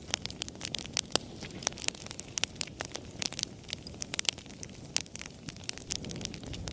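Wood fire crackling in a fireplace: many irregular sharp pops and snaps, several a second, over a steady low rumble of flames.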